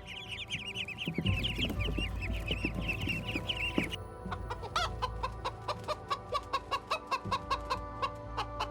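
Chickens calling: a fast run of high peeping chirps, then a steady series of short clucks, over faint background music.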